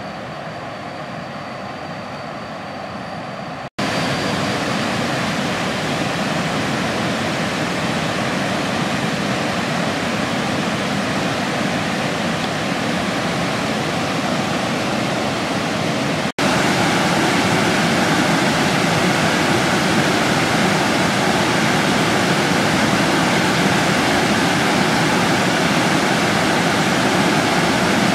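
Waterfall rushing over rock slabs: a steady wash of water noise. It cuts off abruptly and returns louder twice, about 4 s and 16 s in.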